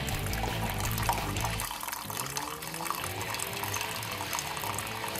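Keurig single-cup coffee brewer dispensing coffee into a mug: the brewer's pump hums steadily until a little under two seconds in, then stops, leaving the coffee trickling and dripping into the cup.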